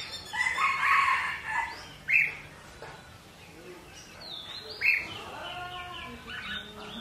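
Red-whiskered bulbuls chirping and calling: a warbling phrase near the start, sharp single chirps about two and five seconds in, and a longer call near the end.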